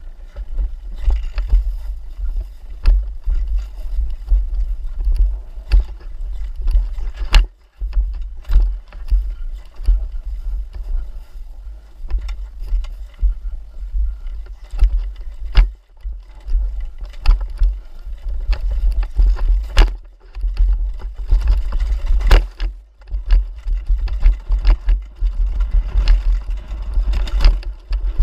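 Rumbling wind buffeting on the microphone of a camera carried on a dirt-bike trail ride, with frequent sharp knocks and clatters throughout.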